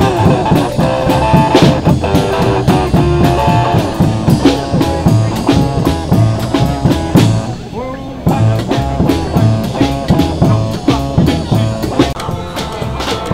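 Up-tempo dance music with guitar and drum kit keeping a steady beat, with a brief break about eight seconds in.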